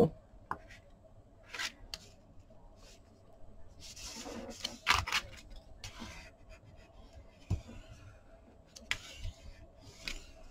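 Kraft cardstock being slid, shifted and pressed down on a cutting mat: scattered paper rustles, scrapes and light taps. Near the end a white folder tool is rubbed over the card to flatten it.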